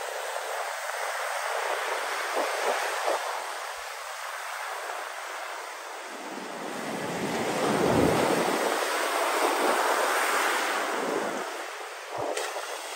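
Heavy surf breaking and washing up a sandy beach: a steady rushing that swells to its loudest about eight seconds in, with wind on the microphone.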